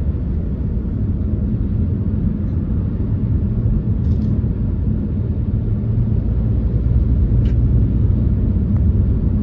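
Car driving along a road, heard from inside the cabin: a steady low rumble of engine and tyres, swelling slightly in the second half.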